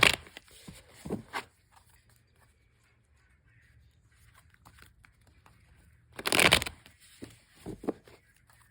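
Tarot cards being shuffled by hand: a brief rustle about a second in, then a louder burst of riffling cards about six seconds in, followed by a few short card flicks.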